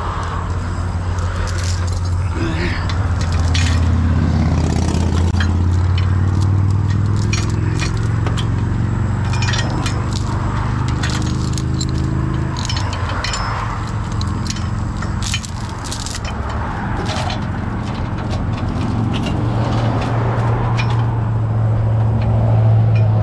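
Steel tow chain clinking and rattling in many short clicks as it is handled, wrapped and hooked onto the wrecker's underlift crossbar, over the steady hum of the tow truck's diesel engine running.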